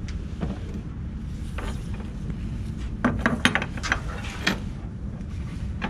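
A polyester lashing strap being threaded around a wooden cable drum on a trailer bed: scattered short scrapes and clinks of the strap, its metal hook and the wood, bunched about three seconds in. A steady low rumble runs underneath.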